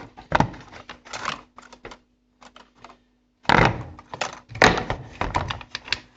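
Irregular clicks and knocks of plastic washing-machine parts being handled and snapped together as the drain cable is fitted back on. A few clicks come about a second in, then a pause, then a dense run of clicks and knocks from about three and a half seconds in, over a faint steady hum.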